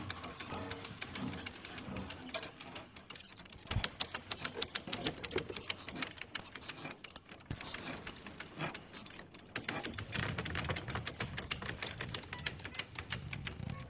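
Rapid, irregular light clicking and rattling, many ticks a second, with a low knock about four seconds in.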